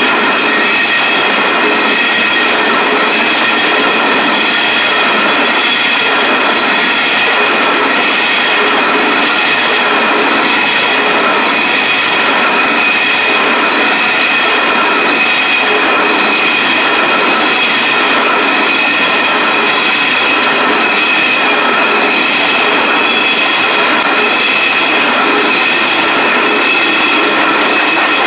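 Narrow-gauge coal train's loaded hopper wagons rolling past, a steady loud rumble of steel wheels on rail with a constant high whine of several tones over it.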